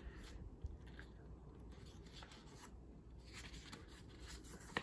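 Faint rustling of a thin sheet of 12x12 patterned scrapbook paper being lifted and turned over in a paper pad, with a soft tick about half a second in and another near the end.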